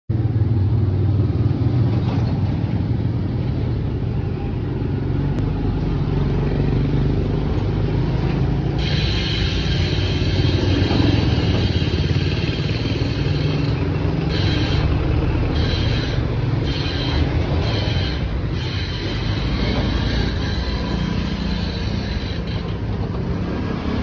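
A steady low rumble runs under everything. About nine seconds in, a Maxzone bicycle rear hub's freehub starts a high-pitched ratcheting buzz. The buzz cuts in and out several times in quick succession in the middle, then stops shortly before the end.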